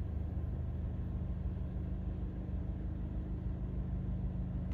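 2025 Toyota Tacoma's 2.4-litre turbocharged four-cylinder idling steadily at about 1,000 rpm after a cold start.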